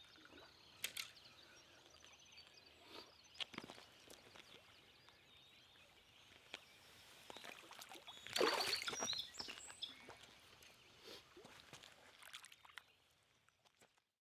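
Faint outdoor ambience with scattered small knocks and clicks, and one louder burst of noise about eight seconds in. The sound fades out near the end.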